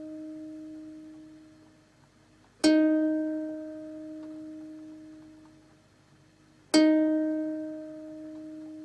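A ukulele string plucked open twice, about four seconds apart, each single note ringing out and fading away; an earlier note is dying away at the start. It is the D# reference note of open B6 tuning (F# B D# G#).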